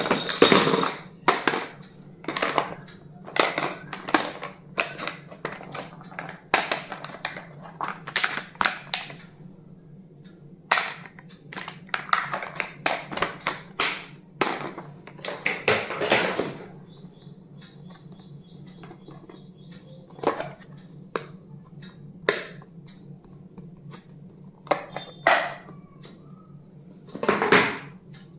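Stationery and its packaging being handled and unpacked by hand: a run of rustles, clicks and taps, dense for the first half and sparser after, over a steady low hum.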